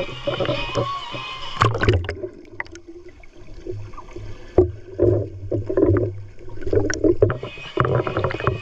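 River water sloshing and splashing in irregular surges, with a few small clicks and splashes.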